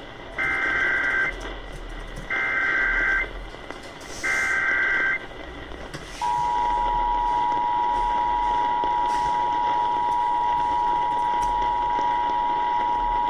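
Emergency Alert System tones on a radio broadcast. First come three short bursts of SAME digital header data, a warbling two-tone signal, each under a second long and about two seconds apart. About six seconds in, the steady two-tone EAS attention signal starts and holds.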